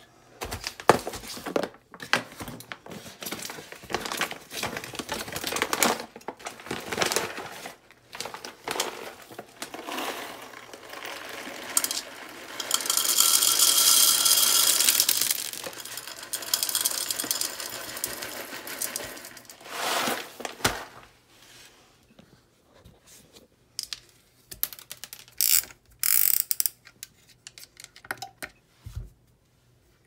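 Foil coffee bag crinkling and whole coffee beans pouring into the Tibek coffee grinder's clear plastic hopper, a crackling rattle that peaks in a loud hiss of beans about halfway through. A few scattered clicks and knocks near the end.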